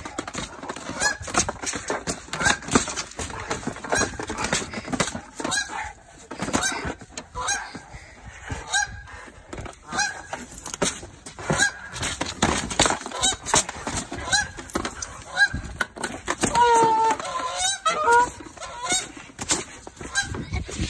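Canada goose honking over and over in short, rapid calls, with a longer drawn-out call about three-quarters of the way through. This is the aggressive honking of a nesting goose attacking a dog to defend its territory.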